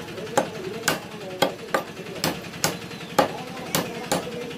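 Heavy cleaver chopping chicken on a wooden tree-stump block: about nine sharp chops, roughly two a second.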